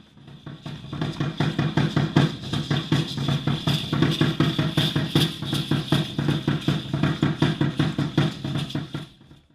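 Music built on fast, even drumming, fading in over the first second and fading out near the end.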